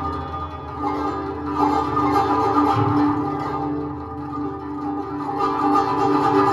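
Live band music led by a plucked guzheng, over a steady electric bass line and a held mid-range tone.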